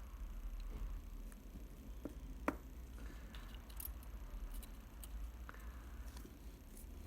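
Scattered light clicks and ticks of small tools and metal camera parts being handled, with one sharper click about two and a half seconds in, over a steady low hum.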